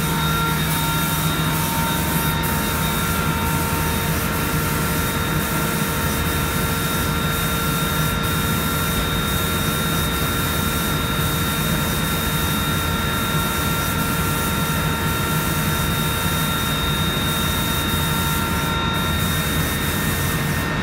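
An automated robotic spray-painting line running: a steady rushing noise with a low hum and several steady whining tones.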